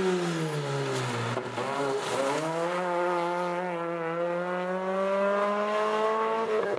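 Rally car engine at full throttle: the revs drop for the first couple of seconds, then climb in one long steady pull as the car accelerates hard. The sound cuts off abruptly near the end.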